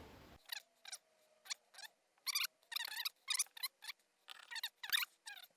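Faint, irregular crackling sizzles of solder and flux as a heavy soldering iron heats the contact of an 18650 lithium-ion cell. There are about a dozen short spits, scattered through the stretch.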